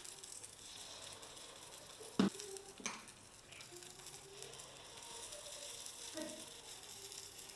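Idli batter sizzling faintly as spoonfuls drop into the hot, oiled molds of an appam pan. There are two sharp clinks of the spoon against the pan a little over two and three seconds in.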